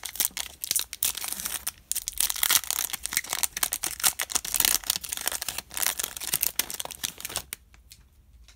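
Trading-card pack wrapper crinkling and tearing as it is pulled open by hand, a dense, busy crackle that stops about seven and a half seconds in.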